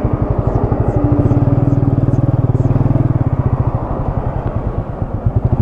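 Motorcycle engine running under way, its firing pulses dense and even; it eases off about four seconds in and picks up again near the end.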